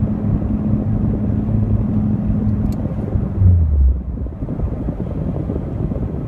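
Nissan 350Z's V6 engine and road rumble heard inside the cabin while cruising at about 40 mph. A steady low engine drone runs through the first half; about three and a half seconds in, a louder low hum falls in pitch, and after that the engine tone fades into the road rumble.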